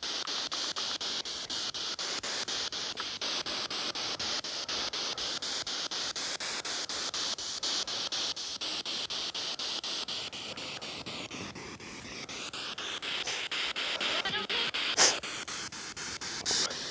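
SP7 spirit box sweeping through FM radio frequencies: a steady hiss of static, chopped into quick even steps by the sweep. It drops lower for a couple of seconds past the middle, and a short sharp burst cuts through it about fifteen seconds in.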